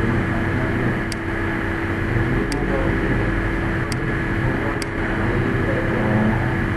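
Steady background hum and hiss with a constant low tone, broken by four sharp computer-mouse clicks spread about a second apart.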